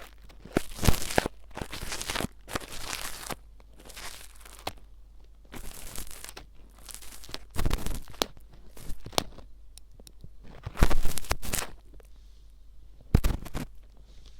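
Close-up ear pick scraping and rustling in an ear, in a string of short scratchy strokes with brief pauses between them, the loudest about eleven seconds in.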